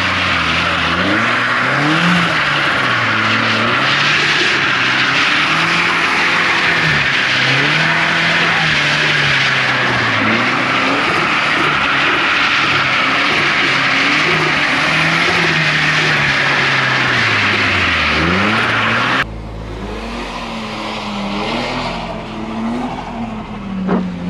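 Turbocharged Mazda MX-5 engine revving up and down again and again while drifting, with a steady rushing noise over it. About 19 s in the rushing noise cuts off suddenly and the engine is heard quieter.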